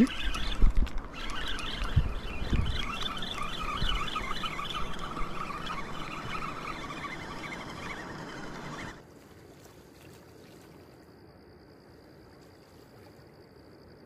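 Water splashing and trickling, with a few dull knocks in the first few seconds. It cuts off abruptly about nine seconds in, leaving a quieter stretch with a steady high-pitched tone.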